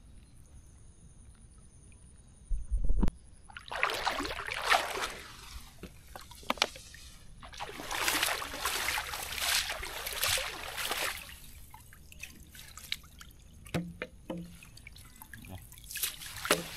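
River water splashing and streaming off a mesh shrimp trap as it is hauled up out of the water. There is a short burst about four seconds in and a longer one of about three seconds starting near eight seconds, with dripping splashes near the end. A short low thump comes just before the first splash.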